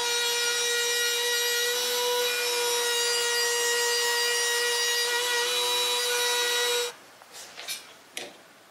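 A Bosch Colt palm router runs at a steady high whine, cutting the inside thread of a wooden nut. It shuts off suddenly about seven seconds in, and a few light clicks follow.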